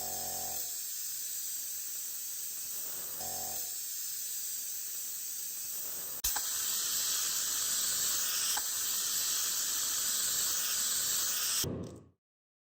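A steady hiss that jumps louder about six seconds in after a click, then cuts off abruptly near the end.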